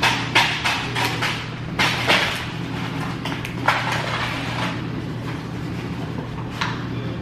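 Chocolate bar wrapper being torn open and crinkled by hand, in sharp rustles mostly in the first couple of seconds and once or twice later, over a steady low hum.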